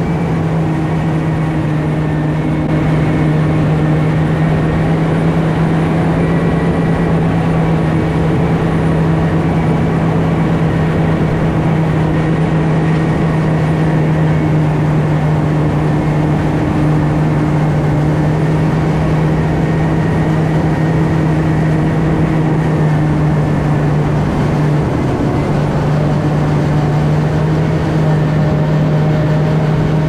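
John Deere self-propelled forage harvester running steadily under load as it chops standing corn for silage: a constant heavy engine hum with a steady low tone.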